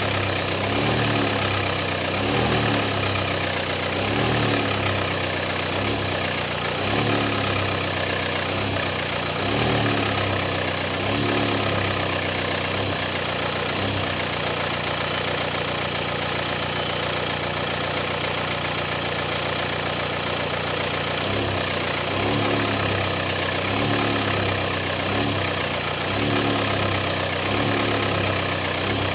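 Car engine idling with a knocking sound, which the mechanic puts down to the engine having sat unused and expects to fade as it runs. The idle pulses about once a second, with a steadier stretch midway.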